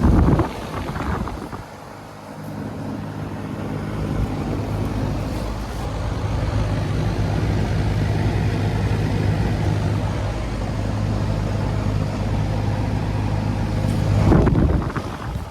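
Outdoor air conditioner condensing unit running in cooling mode: a steady low compressor hum under the rushing of the condenser fan. Brief loud bursts of noise come at the very start and again near the end.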